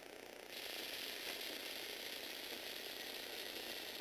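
Lego Technic Power Functions electric motors and plastic gear trains whirring steadily, starting about half a second in, as they fold the box's panels open.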